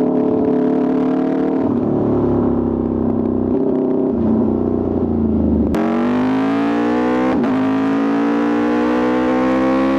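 Aprilia RSV4 RR's V4 engine through an Austin Racing exhaust, running at high revs. About halfway through the sound changes abruptly, and from there its pitch climbs steadily as the bike pulls harder.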